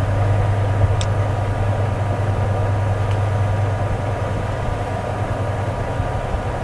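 Steady low hum and hiss of background noise picked up by the microphone, with two brief clicks, one about a second in and one about three seconds in, typical of mouse clicks.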